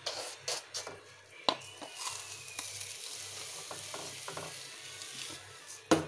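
Granulated sugar being scooped with a small cup from a plastic jar and poured into an aluminium pot: a grainy rustling pour broken by sharp clicks of the cup knocking against the jar and pot. The loudest clicks come about a second and a half in and near the end.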